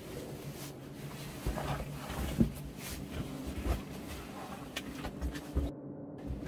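Scattered knocks and scuffs over a steady low hum, with a short voice-like sound about two and a half seconds in.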